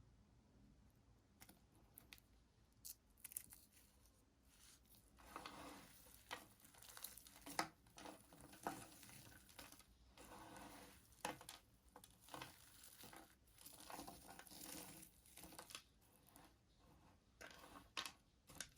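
A knife cutting through a bar of soap: a few sharp clicks, then an irregular run of scraping, crumbling cuts from about five seconds in.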